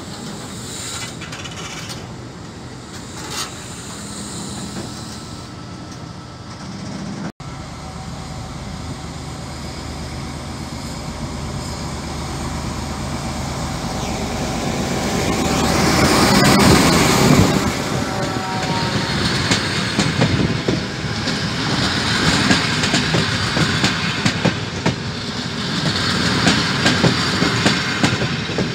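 Container flat wagons of a freight train rolling past, wheels clattering over the rail joints. Then a D.445 diesel locomotive and its ALn 668 railcars go by: the noise builds to its loudest about halfway, then continues as steady wheel clatter.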